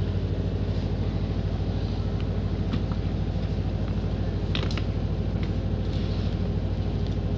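Generator set running steadily with an even low throbbing hum. A few light clicks come from microphone cables and metal connectors being handled in a plastic tub.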